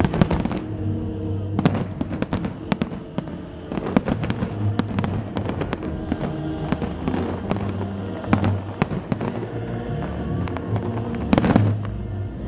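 Fireworks salute going off: a dense, irregular string of bangs and crackles, with a louder cluster of bursts near the end. Music plays underneath.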